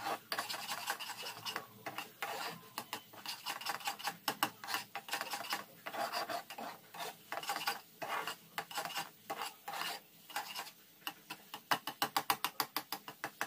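Spatula scraping and stirring a thick rice-flour dough in a frying pan, a run of rasping strokes that quicken to about four a second near the end. The dough is being stirred without pause as it cooks and firms up.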